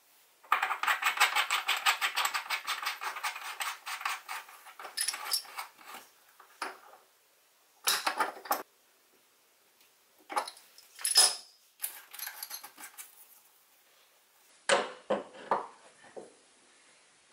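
Metal faucet parts clinking and scraping as a Kohler single-control kitchen faucet is put back together. A fast run of small clicks and rasping lasts about four seconds. Scattered clinks follow as the threaded piece is tightened with a wrench and the handle is refitted near the end.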